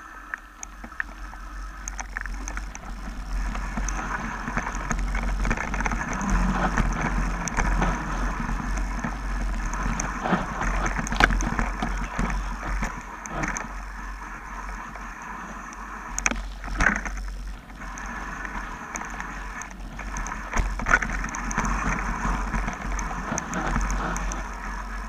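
Mountain bike descending a dirt forest singletrack: tyres rolling over dirt and leaves with the bike rattling, over a steady low rumble, broken by sharp knocks from bumps, the loudest about eleven and seventeen seconds in.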